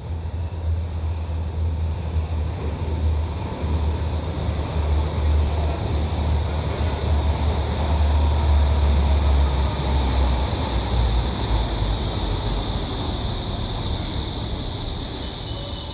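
Berlin U-Bahn IK20 train approaching through the tunnel and running into the underground station as a steady, loud rumble with a deep low drone. High-pitched wheel or brake squeals start near the end as it slows along the platform.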